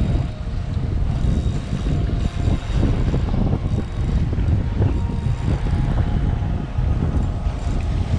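Strong wind buffeting the microphone, a heavy, uneven low rumble, over the wash of choppy sea water.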